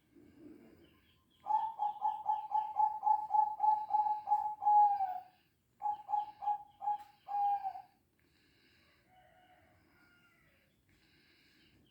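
Zebra dove calling an unusual, rapid series: about a dozen short repeated notes at one pitch, ending in a longer falling note, then after a brief pause a shorter run of five notes ending the same way.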